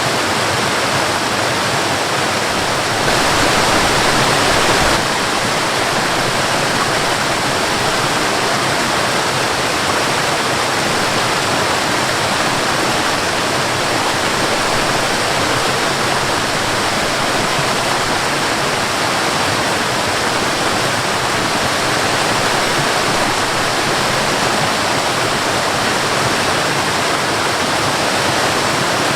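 Waterfall rushing in a steady, dense roar of falling water, briefly a little louder about three seconds in.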